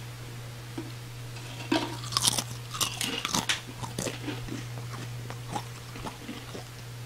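A person crunching and chewing food, a dense run of crunches between about two and four and a half seconds in, then sparser chewing.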